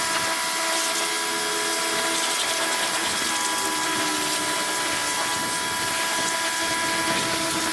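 Electric pressure washer running steadily: a constant pump whine over the hiss of the water jet blasting grime off a car's rear subframe and differential.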